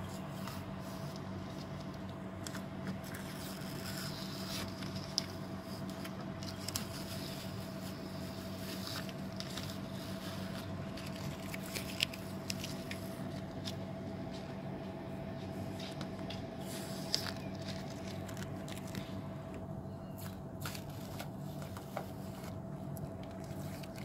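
Masking tape being peeled off a car door and crumpled in the hand: crinkling, scratchy tearing and a few sharp ticks, over a steady low hum.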